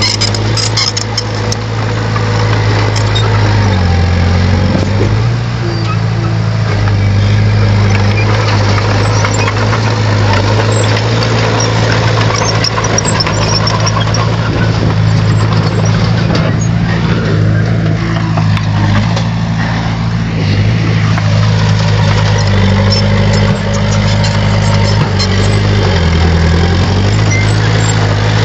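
Bulldozer's diesel engine running steadily and loudly, its pitch sagging briefly about four seconds in and again near the end.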